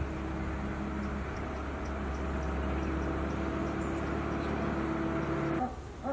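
A vehicle engine running steadily with a low, even hum, stopping suddenly near the end.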